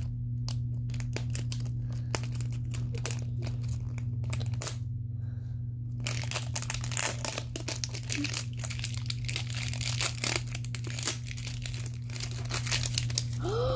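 Plastic wrapper layer of an L.O.L. Surprise ball crinkling and tearing as it is peeled off by hand, a dense run of crackles that eases for a moment about a third of the way in, then picks up again.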